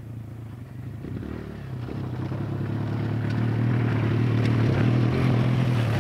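Kawasaki KLX 140G dirt bike's 144cc air-cooled single-cylinder four-stroke engine running at a steady pitch as the bike comes down the trail toward the microphone. It grows steadily louder and passes close by near the end.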